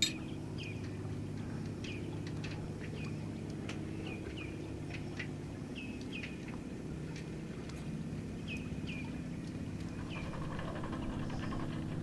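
Vaporetto's diesel engine idling steadily with a low hum while the boat lies at the landing stage. Short high squeaks that drop in pitch, often in pairs, come every second or two over it, with scattered light clicks and one sharp knock right at the start.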